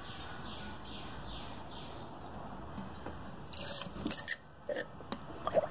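A few knocks, clicks and scrapes from something being handled, in the last couple of seconds, the loudest a sharp knock near the end.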